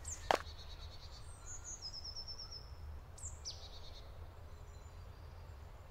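Forest ambience: one short crunch or knock just after the start, then small birds chirping, with a quick run of about eight high notes and a single falling call a little later, over a steady low rumble.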